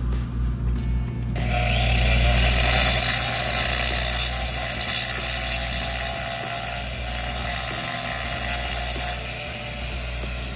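Metalwork on large steel pipe: a loud, steady, rushing hiss that starts about a second and a half in and eases a little near the end, over a steady low hum, with background music.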